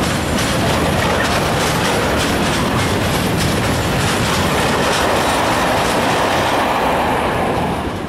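A freight train of hooded steel-coil wagons rolling past at close range, its wheels clicking in a steady rhythm over the rail joints. The sound eases off near the end.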